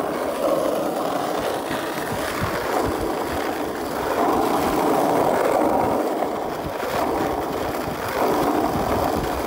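Skateboard wheels rolling over rough, cracked asphalt: a steady rolling rumble with a few low thumps.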